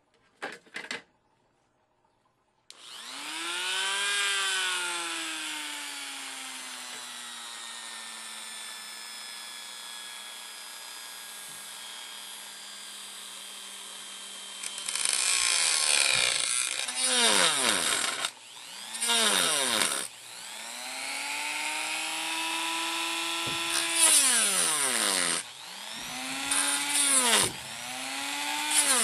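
Cordless rotary tool with a cut-off wheel, switched on about three seconds in and running with a steady high whine. From about halfway its pitch drops and recovers again and again as the spinning wheel is pressed into a printed circuit board to cut out a chip.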